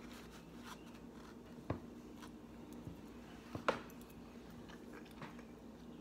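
Quiet eating at a table: a fork working in a foam takeout box and chewing, with two sharp clicks about a second and a half apart, near the middle, over a faint low hum.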